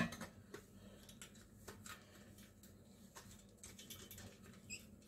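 Faint scattered taps and clicks of a stainless-steel water bottle being handled at the sink, over a low steady hum.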